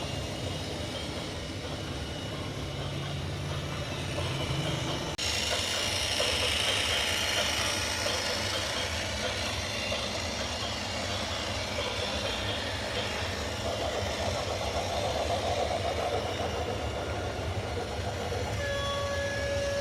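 Heavy vehicle and machinery noise that changes abruptly about five seconds in, with a horn sounding steadily near the end.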